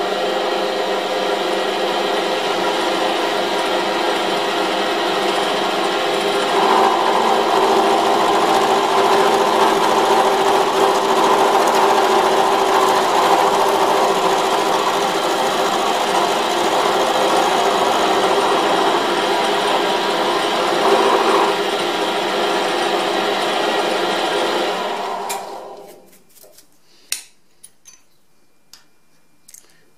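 Small milling machine running, its end mill taking a 1 mm cut across the end of a high-tensile steel bolt to form a spanner flat: a steady machining noise with many tones, louder for about fifteen seconds in the middle while the cutter is in the steel. The machine stops about 25 seconds in, followed by a few light metallic clicks.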